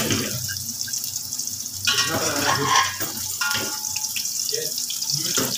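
Metal spatula scraping and clattering in a frying pan of hot oil as fried carrot strips, raisins and almonds are lifted out onto a plate, over a steady hiss. The scraping is loudest about two seconds in, with a few sharp clinks a little later.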